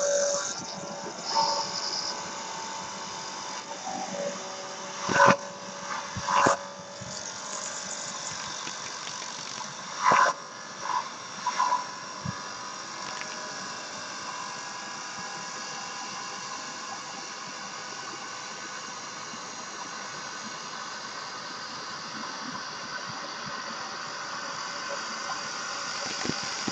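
Backknife blade of a CNC wood lathe cutting a spinning wooden spindle: a steady cutting noise, with several sharp, loud knocks between about five and twelve seconds in, stopping abruptly at the end of the pass.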